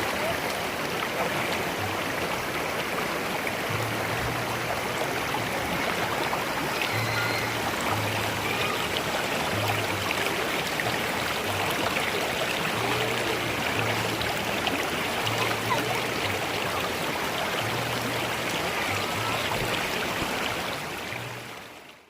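Mountain stream water rushing steadily over rocks, with low steady notes coming and going underneath. It fades out at the very end.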